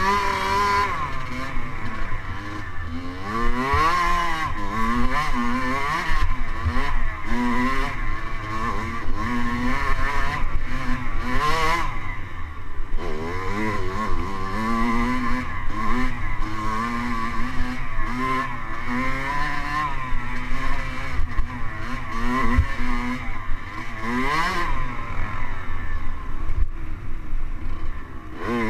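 Dirt bike engine heard from on the bike, revving up and down over and over as the throttle is worked and gears change.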